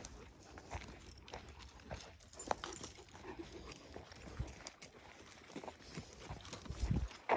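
Footsteps on a dirt trail strewn with forest litter, an irregular run of soft thuds and crunches about twice a second, with a heavier thud near the end.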